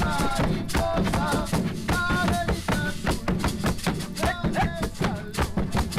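Background music with a steady drum-kit beat and short melodic phrases over it.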